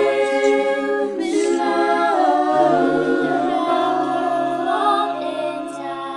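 Mixed-voice a cappella choir holding sustained chords, with a low men's part under the women's voices. The chord shifts a few times, and the sound tapers off near the end.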